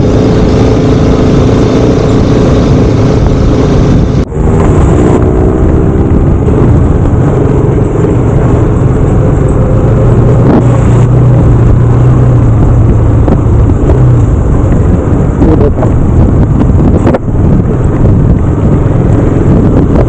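A 200 cc single-cylinder sport motorcycle's engine running under way, with a loud steady rush of riding noise over it; the engine pitch shifts a few times. The sound breaks off for an instant twice, about four seconds in and near the end.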